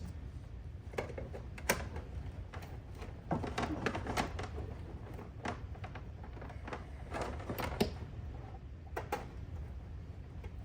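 Irregular clicks, taps and knocks of hardware being handled while gear is fitted into a rack case, over a steady low hum.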